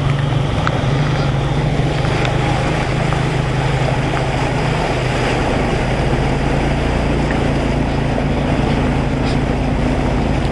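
Small motorcycle engine running steadily as it rides through floodwater, with the front wheel churning up and splashing water in a constant hiss of spray.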